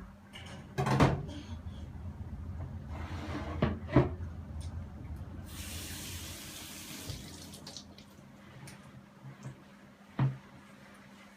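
Kitchen tap turned on and running briefly, with knocks and clatter around it: a few sharp knocks in the first four seconds, a short rush of water about halfway through that cuts off suddenly, and one more knock near the end.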